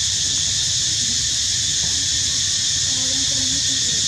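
Steady high-pitched drone of an insect chorus, over a low rumble, with a few faint short low tones about three seconds in.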